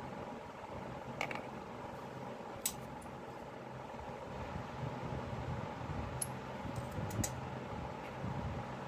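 Steady background hum, like a running fan, with several short sharp clicks from scissors being handled and snipped over a PVC pipe ring.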